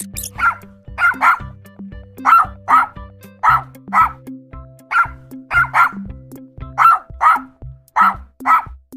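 Dog barking repeatedly, mostly in quick pairs of barks about once a second, over background music with a steady beat.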